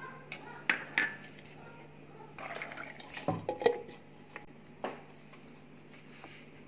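Light clinks and knocks of a plastic mixer-grinder jar being handled and set onto the mixer base, the loudest knocks a little after the middle. A faint steady hum runs underneath.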